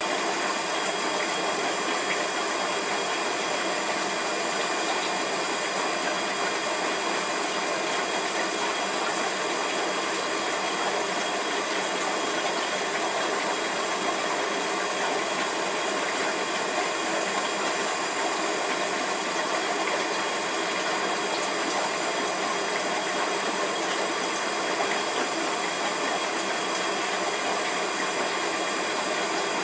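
Aquarium equipment running: an even, steady hiss of water and motor noise with several faint high whining tones held throughout.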